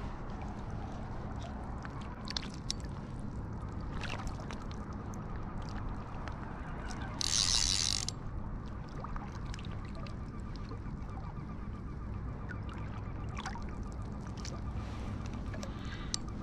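A hooked sea trout splashing at the surface beside the landing net: one short, hissing splash about halfway through. Under it runs a steady low rumble of wind on the microphone, with scattered small clicks.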